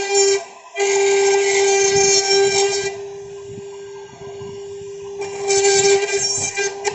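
Servo-driven CNC router running: a steady, high spindle whine, with two louder, hissier stretches of machining noise, one about a second in and one near the end.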